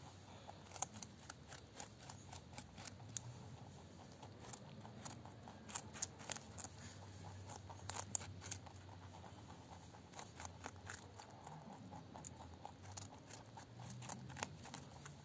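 Two rabbits gnawing whole raw carrots: quick runs of small, crisp crunches, several a second, broken by short pauses.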